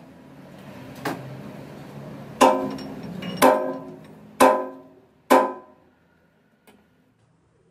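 Five sharp metallic clanks, about one a second, each ringing briefly, as a camshaft is fitted into a lathe's four-jaw chuck and the chuck key is worked.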